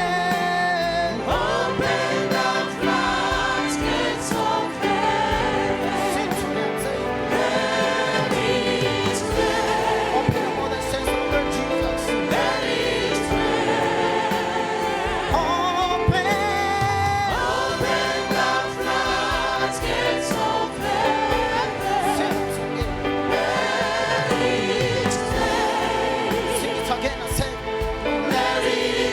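Choir singing a gospel song with instrumental backing and a steady beat.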